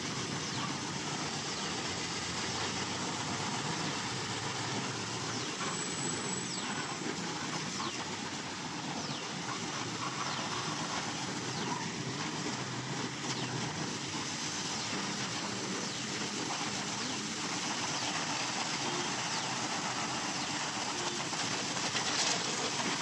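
Steady rushing hiss of water being sprayed from a wash hose onto a motorcycle.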